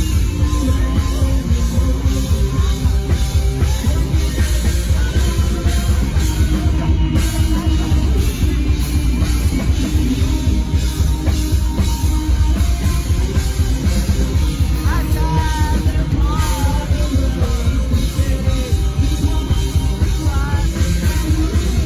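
A rock band playing live: loud distorted guitars, bass and a driving drum kit, with a few sung or lead-guitar phrases near the end.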